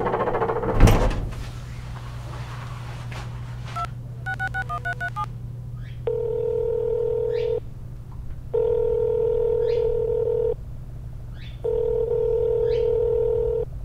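A heavy thump about a second in, then a quick run of touch-tone beeps as a phone number is dialled, followed by the phone's ringback tone ringing three times while the call waits to be answered.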